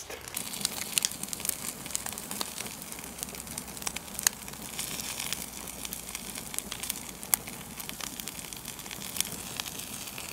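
Sap-filled fatwood log burning in a steel fire pit: irregular crackles and pops over a steady hiss of flame.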